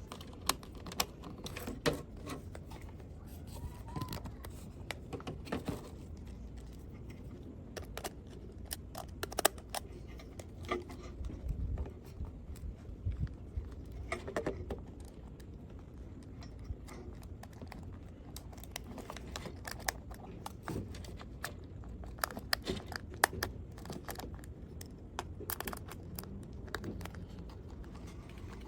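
Irregular clicks, taps and light scrapes of small hard objects being handled, over a steady low background hum.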